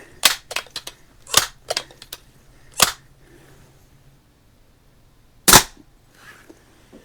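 Crosman 1400 multi-pump pneumatic pellet rifle fired once, a sharp crack about five and a half seconds in. Before it come a run of clicks and clacks from handling the rifle.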